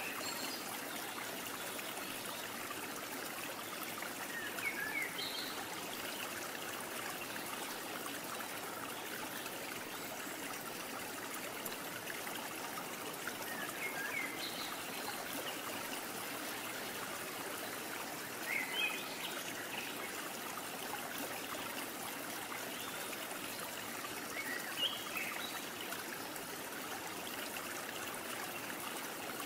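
Steady rush of flowing water like a stream, with brief high chirps every few seconds.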